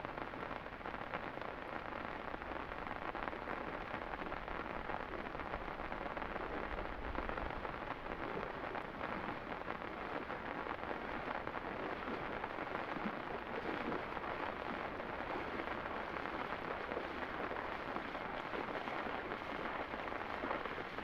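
Heavy rain falling steadily, a continuous even patter of drops.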